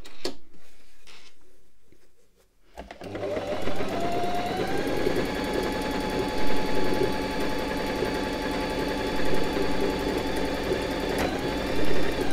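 A Lidl Silvercrest household sewing machine starts about three seconds in after some light handling clicks. It speeds up and runs steadily, stitching a straight seam through six layers of fabric without strain, dips briefly near the end and stops.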